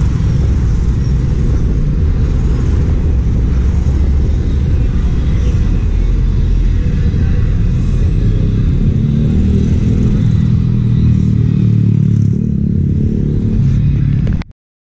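Steady low rumble of passing road traffic, with cars and motorcycles, that cuts off suddenly near the end.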